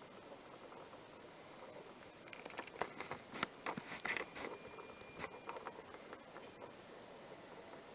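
Faint, crisp crackles and snaps from a roe deer foraging in snow, clustered in the middle few seconds over a low steady hiss.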